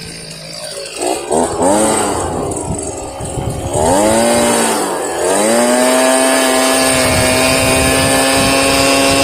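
Leaf blower with a gutter extension being started and brought up to speed: its motor rises in a few surges, dips briefly about five seconds in, then holds a steady high speed.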